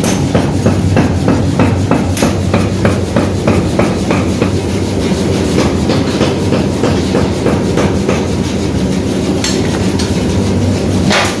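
Rapid, evenly spaced hammer blows on metal, about three a second, over a steady low machine hum. The blows thin out over the last few seconds.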